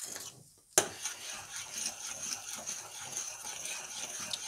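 A spoon folding beaten egg whites into mascarpone cream in a ceramic bowl, with soft, steady stirring and scraping. One sharp click comes just before a second in.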